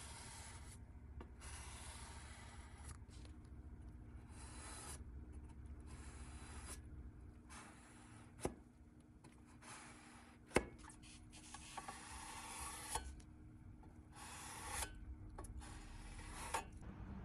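A plastic spreader scraping grey filler across a primed sheet-steel panel in a series of short, hissy strokes. Two sharp taps about halfway through are the loudest sounds.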